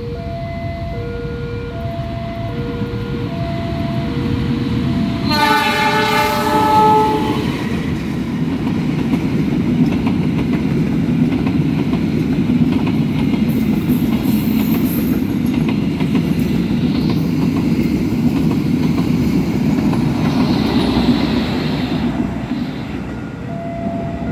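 Two steady tones alternate at first, typical of a level-crossing warning alarm. About five seconds in, the CC 206 diesel-electric locomotive (a GE C20EMP) sounds its horn in one long blast of about two seconds. Then comes the steady rumble and wheel clatter of the train's passenger coaches passing close by, and the alternating tones return near the end.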